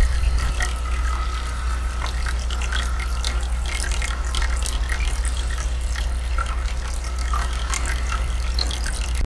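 Spooky sound-effects soundtrack for a haunted dungeon scene: a deep, steady low rumble under a dense scatter of crackles and clicks, cutting off suddenly at the end.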